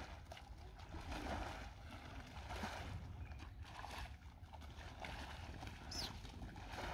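Long-handled rakes and hoes dragged through the water and mud of a flooded paddy field, giving soft sloshing swishes that recur every second or so. A brief high chirp sounds near the end.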